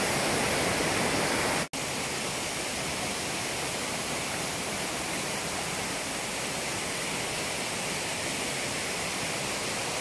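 Water of Tad Sae waterfall rushing steadily down low limestone cascades, an even, constant rush of white water; it breaks off for an instant about two seconds in.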